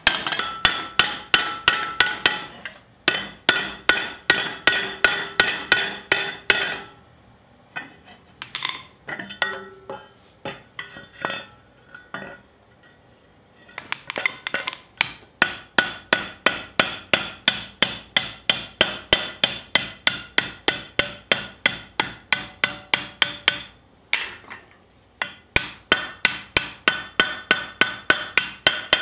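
Hand hammer striking red-hot sheet steel on an anvil in quick ringing blows, about four a second, as the edge of a forged skillet is raised. The blows thin out to a few scattered strikes for several seconds about a quarter of the way in, and stop briefly near the end.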